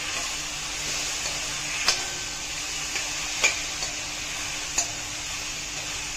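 Onions and tomatoes sizzling in oil in a stainless steel kadai as a steel spoon stirs them, with three sharp clinks of the spoon against the pan.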